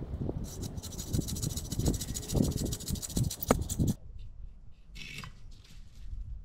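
Dry branches of a fallen tree rustling, scraping and snapping as they are handled and dragged, with one sharp crack about three and a half seconds in. The sound drops away abruptly about four seconds in.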